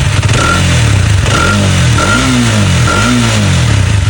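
Hero Xtreme 250R's single-cylinder engine, hot after long running, revved in about three throttle blips, the pitch rising and falling each time before it settles back to idle near the end. It is being revved to check for the tappet noise that commenters complain of.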